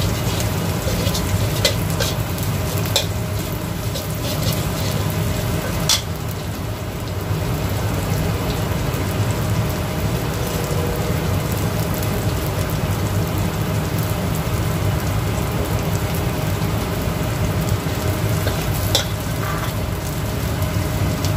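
Shallots and a ground chili-garlic spice paste with dried shrimp sizzling in hot oil in a pan, stirred with a spatula that scrapes and knocks against the pan now and then. Under it runs the steady low hum of a kitchen smoke extractor.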